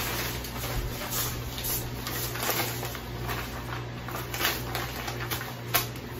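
Large plastic bag of cane sugar being handled, its packaging rustling and crinkling irregularly, over a steady low hum.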